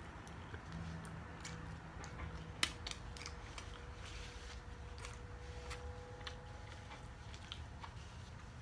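Close-up mouth sounds of chewing a mouthful of fettuccine alfredo: scattered soft wet clicks and lip smacks, with one sharper click a little over two and a half seconds in.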